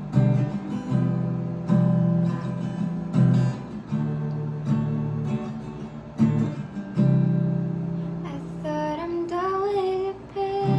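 Acoustic guitar strummed in a repeating chord pattern; near the end a voice comes in singing the song's next line over it.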